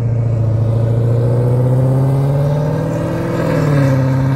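A car engine accelerating, its pitch climbing steadily, dropping briefly at a gear change about three and a half seconds in, then climbing again.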